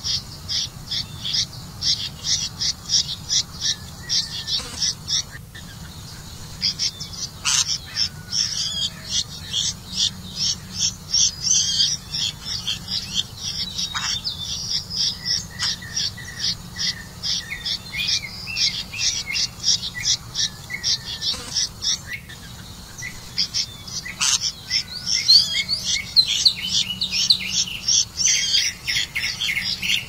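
Nestling birds begging: a fast run of short, high chirps, about three or four a second, pausing briefly twice.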